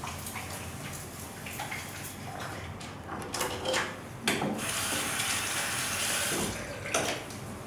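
Water running from a washbasin tap for about two and a half seconds, starting a little after four seconds in and stopping near the end, with short handling noises before it.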